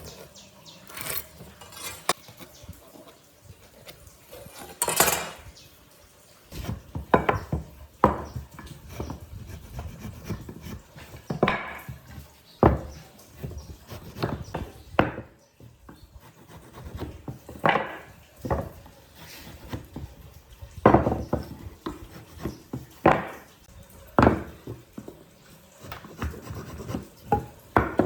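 Wood being handled and worked: irregular knocks and clatters of wooden pieces, with rubbing and scraping between them.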